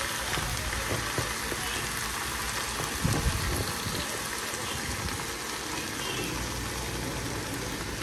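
Beef steaks and onions sizzling steadily in a frying pan as thick potato cream is poured over them, with a couple of soft low thumps about three seconds in.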